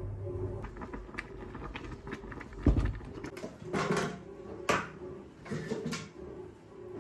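Small handling sounds in a room: scattered soft clicks, a low thump about two and a half seconds in, and a few brief rustling or scraping swishes.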